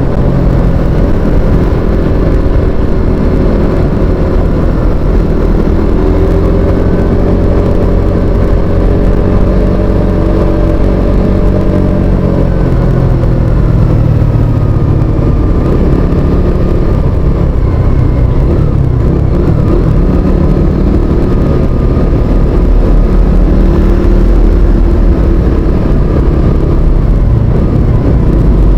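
Motor vehicle engine running while under way, its pitch dipping about halfway through and then rising again as the speed changes, over a steady low rumble.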